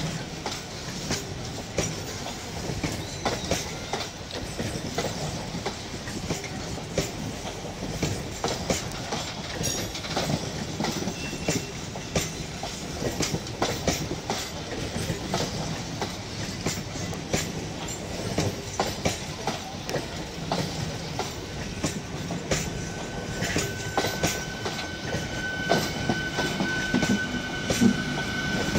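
MEMU electric multiple-unit train passing close by, a steady rumble of its coaches with wheels clicking over the rail joints. Near the end a steady high whine joins in.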